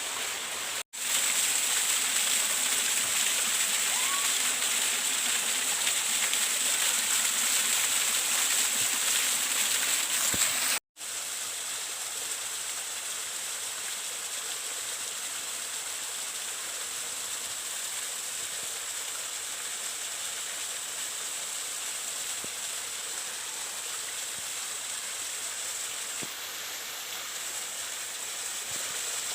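Waterfall rushing, a steady wash of falling water. It cuts out abruptly twice, about a second in and again about eleven seconds in, and is quieter after the second break.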